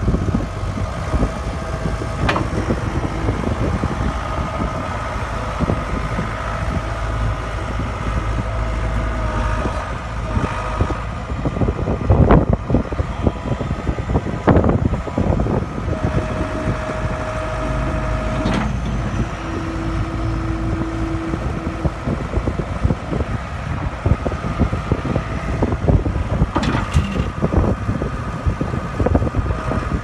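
John Deere 280 skid steer's 4.5-litre four-cylinder Powertech diesel running steadily as the loader drives and raises and lowers its bucket. Several sharp knocks and clanks, and two short steady whines about halfway through.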